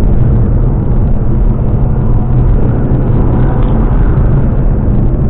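Ford Mustang cruising: a steady, loud, low drone of engine and road noise.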